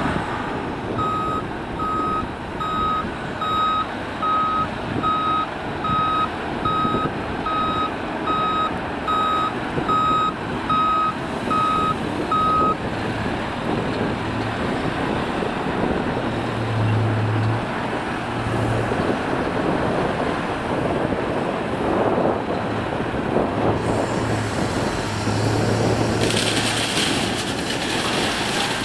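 Volvo L150H wheel loader's diesel engine working under load, its reversing alarm beeping about once a second for the first twelve seconds as it backs away from the pile; the engine keeps working as it drives up and raises its loaded bucket over the tipper trailer, with a hissing rush near the end.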